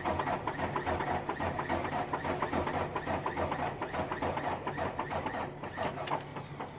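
Mercedes-Benz diesel engine in a semi truck being cranked by its starter without firing, a rhythmic chugging of about four to five compression strokes a second that dies away near the end as the cranking stops. The batteries don't hold enough charge to start it, even with a jump box on them.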